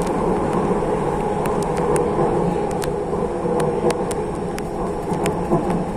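Jakarta MRT electric train running, heard from inside the car: a steady rumble and hum from the wheels and running gear, with light clicks now and then.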